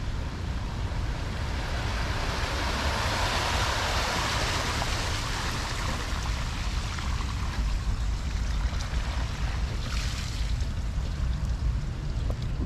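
Tyres of a Tesla Model Y swishing through standing water as the electric car rolls slowly past. The hiss swells a few seconds in and then eases, over a steady low rumble of wind on the microphone.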